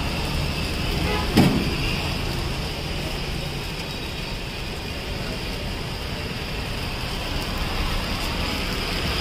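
Steady sizzling of a tomato-onion uttapam cooking on a hot flat iron griddle, with a single sharp knock about a second and a half in.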